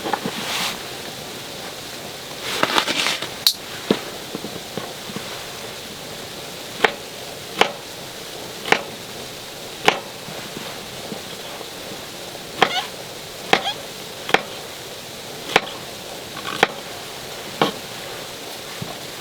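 A series of sharp knocks, each a single strike, coming at uneven intervals of roughly one a second over a steady hiss, with a short rustle about three seconds in.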